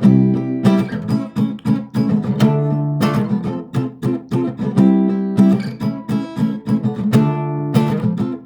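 Acoustic guitar strummed in a steady rhythm, playing chords in an instrumental break of a song.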